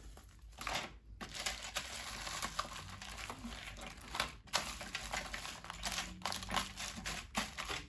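Plastic packaging crinkling and rustling as items are handled, with many small clicks through it.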